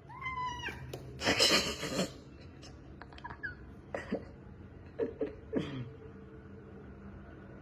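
A cat meowing: a short call near the start, then a loud burst of rushing noise about a second in, and a few brief falling calls later on.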